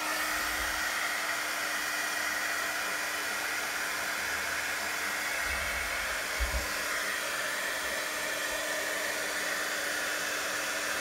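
Embossing heat tool running steadily: a fan-blown hiss with a steady motor hum, melting black embossing powder on a stamped image.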